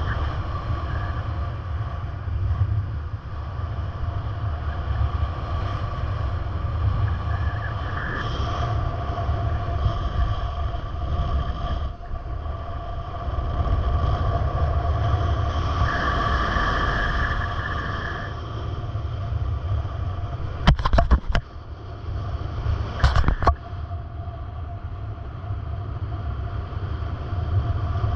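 A moving vehicle heard from inside: a steady low rumble with a faint tonal hum over it. Two short clusters of sharp knocks or rattles come about two-thirds of the way in.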